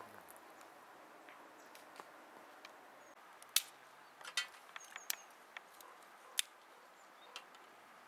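Faint outdoor ambience, then from about halfway a scatter of sharp snaps and cracks of dry twigs as a small wood fire is lit and fed in the firebox of a camp samovar.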